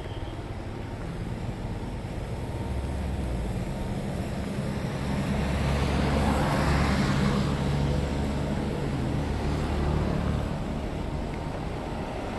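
Street traffic on a wet road: a bus passes close, its engine rumbling and its tyres hissing on the wet tarmac. The sound swells to its loudest about six seconds in, then eases off.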